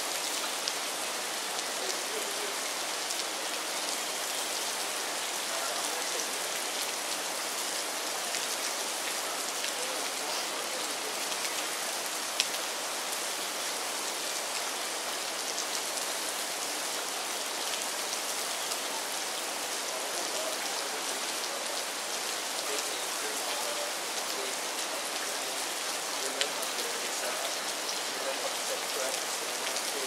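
Steady rain falling on a river and its grassy bank, an even hiss with two sharp drop taps, one about midway and one near the end.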